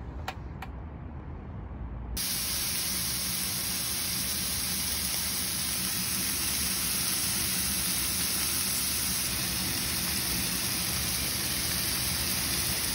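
Thin strips of meat frying in a pan: a steady sizzle that starts abruptly about two seconds in, after a low background rumble with two small clicks.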